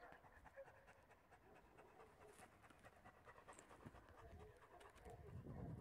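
English setter panting faintly in quick, even breaths, with a low rumble near the end.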